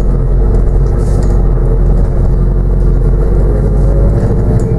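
Onboard sound of a New Routemaster diesel-electric hybrid double-decker bus on the move: a steady drivetrain hum over road rumble, with a faint rising tone near the end as it picks up speed.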